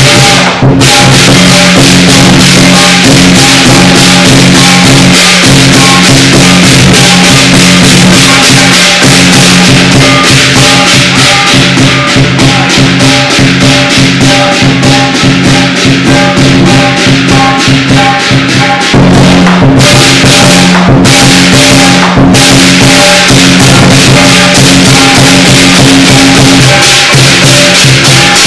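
Lion dance percussion: a drum beaten fast with clashing cymbals and a ringing gong, loud and unbroken.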